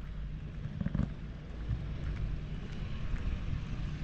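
Steady low rumble of wind on the microphone and road noise from a moving ride, with a brief louder thump about a second in.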